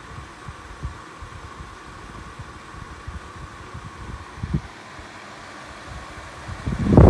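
EcoAir dehumidifier running, a steady fan hum with a faint steady tone and a few soft low knocks. Near the end a much louder rush of air noise sets in, wind buffeting the microphone.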